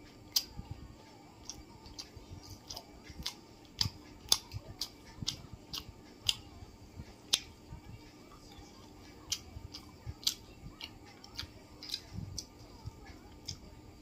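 A person chewing masala dosa with lip-smacking: an irregular run of sharp, wet clicks, two or three a second, with a few louder smacks.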